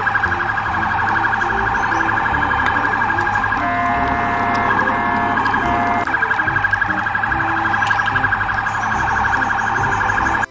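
Police siren sounding a fast warbling wail, which switches for a couple of seconds near the middle to a pattern of steady beeping tones before the warble returns, then cuts off suddenly at the end.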